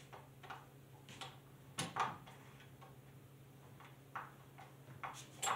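Scattered light clicks and taps as the screwdriver end of a combination wrench turns the chain-tensioning screw on a Husqvarna 135 Mark II chainsaw, setting the tension pin. The loudest clicks come about two seconds in and near the end.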